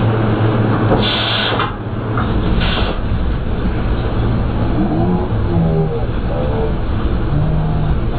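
Sand rail's twin-turbo LS V8 running hard, loud and steady with a strong low drone and wind rush. There are two brief bursts of hiss about one and three seconds in, and voices call out over the engine in the second half.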